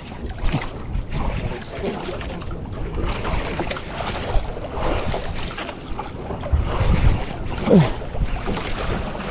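Wind buffeting the microphone and sea water sloshing against a fishing boat's hull, with a steady low rumble and uneven knocks. A short falling vocal sound comes near the end.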